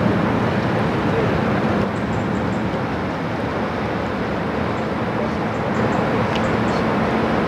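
Steady low drone of a passing inland motor cargo ship's diesel engine, mixed with an even rushing noise.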